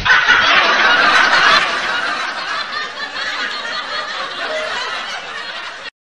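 Hearty laughter, loudest for about the first second and a half, then quieter and fading until it cuts off abruptly near the end.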